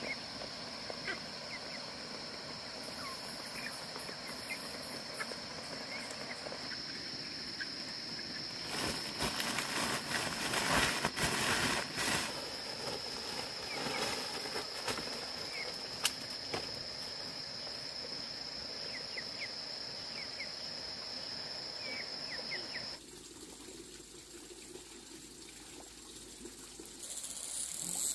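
Insects droning steadily at a high pitch, with scattered short high chirps over it and a few seconds of louder rustling noise near the middle. The drone stops abruptly about 23 seconds in, giving way to quieter outdoor background and a high hiss near the end.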